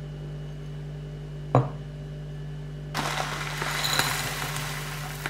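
A single thump about one and a half seconds in, then dry berry muesli (oat flakes with dried berries) poured from its bag into a bowl: about two seconds of pattering rattle. A steady low hum runs underneath.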